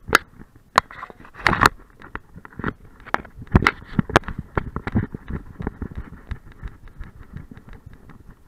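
Knocking from an action camera strapped to a running dog's harness: rapid, irregular bumps and thumps as the camera jolts with the dog's strides. The loudest knocks fall in the first two seconds.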